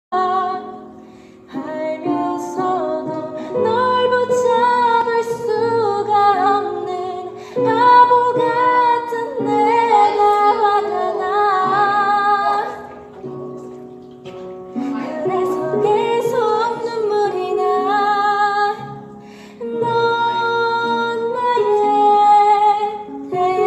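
A woman singing a Korean ballad in phrases, holding and bending notes, over a soft instrumental accompaniment.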